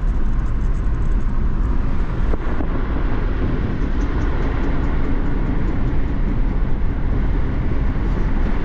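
Swaraj 733 FE tractor's three-cylinder diesel engine running steadily under load as the tractor is driven along the road, a loud, even low rumble.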